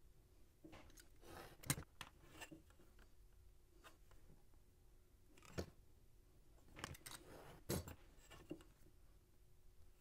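Quiet handling sounds of a steel ruler, pen and utility knife on a cutting mat as rubber sheet is marked and cut into strips: scattered taps and clicks with a few brief scrapes, the sharpest click just under two seconds in.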